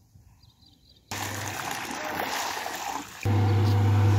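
Water noise starts suddenly about a second in. Then, about three seconds in, the pump motor of a portable pool-cleaning machine switches on and runs with a loud, steady low hum.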